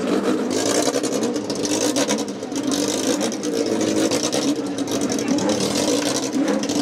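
Race motorcycle engines running steadily, their pitch wavering slightly.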